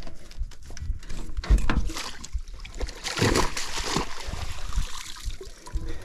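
A small barramundi splashing at the surface as it is scooped into a landing net, with water sloshing and pouring through the mesh; the splashing is loudest about three to four seconds in.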